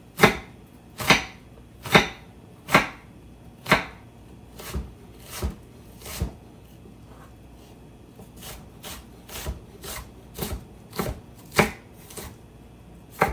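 Chef's knife chopping sweet onion very small on a wooden cutting board: sharp knocks of the blade on the board, about one a second at first, then lighter and quicker, about two a second, from about eight seconds in.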